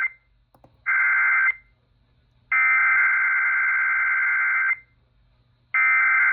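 Emergency Alert System SAME header data bursts, the harsh two-tone digital screech that opens a NOAA Weather Radio Required Weekly Test, played through a radio speaker. A short burst comes about a second in, a longer one of about two seconds follows, and a third starts near the end.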